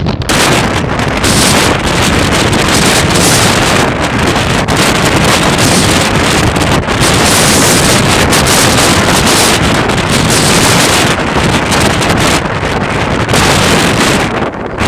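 Strong wind blasting the microphone in a loud, continuous roar, with storm waves crashing on the lakeshore beneath it.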